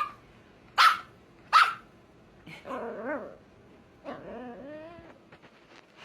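Scottish Terrier–Chihuahua mix puppy barking three times in quick succession, sharp and loud, then letting out two longer wavering whine-growls, trying to get another dog to play.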